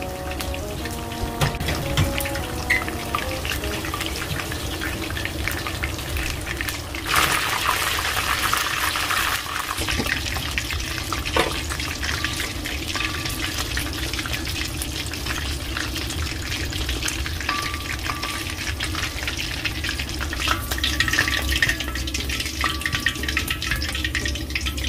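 Tempura frying in hot oil: a steady sizzle with constant small crackles, swelling into a louder surge of sizzling about seven seconds in.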